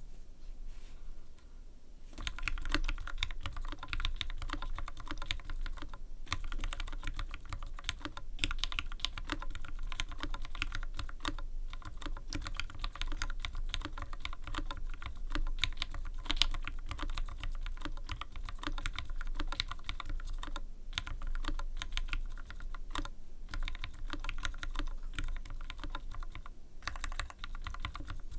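Typing on a Rama Works M60-A mechanical keyboard fitted with lubed Tealios V2 67 g linear switches and GMK Mizu keycaps: a fast, continuous run of keystrokes that starts about two seconds in.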